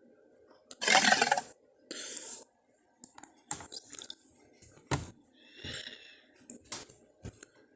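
Tarbosaurus sound effects: a short, loud, rough growl about a second in, a brief hiss, then scattered clicks and crunching sounds with a short squeal near the end.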